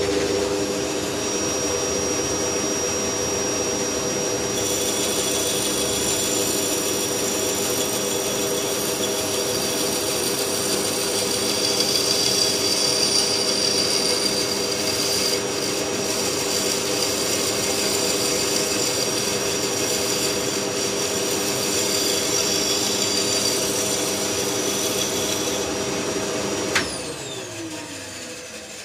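Band saw running while the back edge of its blade is honed round with a hone held against it, which adds a higher scraping hiss from about four seconds in until shortly before the end. The saw is switched off about two seconds before the end, and its hum falls in pitch as the wheels coast down.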